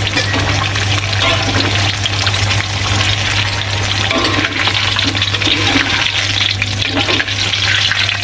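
Small whole round eggplants (terong gelatik) deep-frying in a wok of hot oil, sizzling and crackling steadily, while a wire strainer stirs them and lifts them out near the end. A steady low hum runs underneath.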